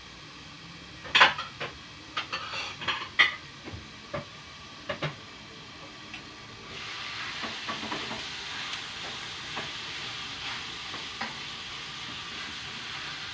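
A few sharp knocks and clatters, then, from about seven seconds in, soy-marinated pork chops frying in hot oil with a steady sizzle. The heat is too high and is scorching the meat.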